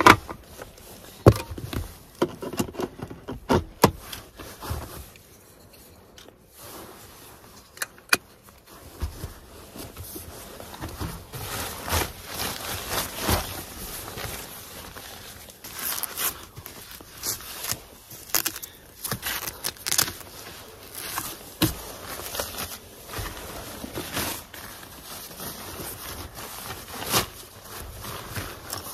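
A Canon rain cover handled and pulled over a camera and telephoto lens. A few sharp knocks and clicks come first, then from about ten seconds in the fabric rustles and crinkles on and on.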